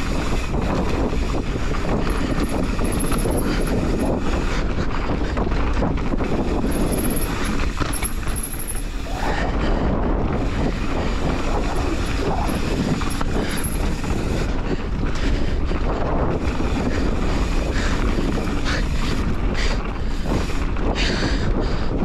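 Mountain bike rolling fast along a dirt trail: steady rumble of the tyres on the dirt with rattling and clattering from the bike, and wind buffeting the microphone.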